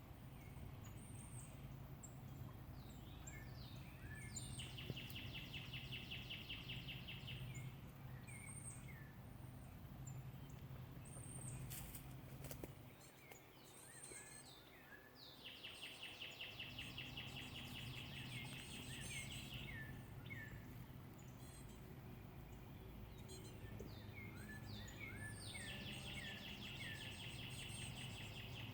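Songbird singing a song three times: a few quick down-slurred chirps, then a fast, even trill of about three seconds. Short high notes from other birds sound in between, over a faint steady low hum.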